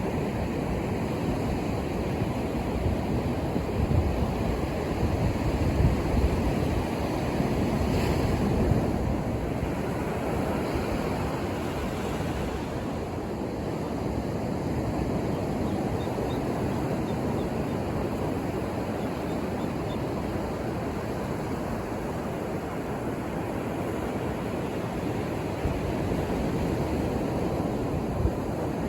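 Ocean surf breaking and washing up the shore, a continuous rushing wash of waves, a little louder over the first several seconds and then steady.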